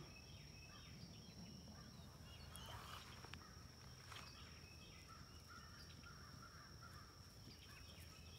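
Near silence: faint outdoor field ambience with faint, scattered distant bird calls.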